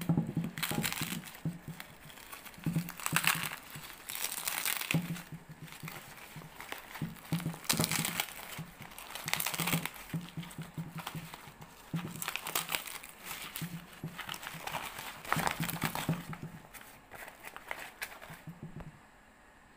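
White plastic courier bag crinkling and rustling in irregular bursts as it is handled and pulled open.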